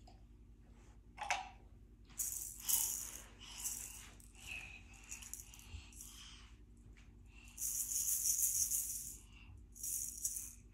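A small handheld toy rattle being shaken in irregular bouts, a bright dry rattling, with the longest and loudest bout a little past the middle.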